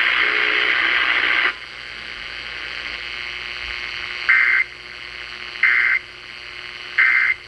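Radio static hiss that cuts off about a second and a half in, then an Emergency Alert System end-of-message signal: three short, identical bursts of screechy digital data tone about a second and a half apart, over low broadcast hiss, marking the end of the alert.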